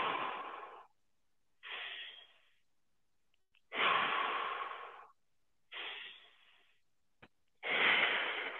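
A man breathing deeply and slowly, demonstrating belly (diaphragmatic) breathing close to the microphone. The breaths come in pairs, a long louder breath followed by a short fainter one, three times over, each cut off abruptly to silence by the call's audio.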